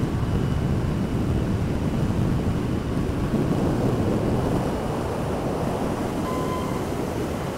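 Mercedes-Benz GenH2 hydrogen fuel-cell truck driving past at close range: a steady rush of tyre and wind noise with no diesel engine note, easing a little after about five seconds.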